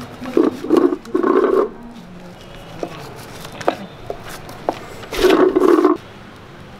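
Large kitchen knife sawing through a roasted, crusted piece of meat on a wooden cutting board: three short rasping strokes in the first two seconds and a longer one about five seconds in, with a few sharp clicks of the blade in between.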